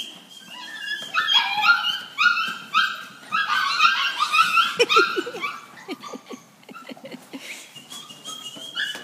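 Border Collie puppies yipping, many short high calls overlapping, thinning out over the last few seconds.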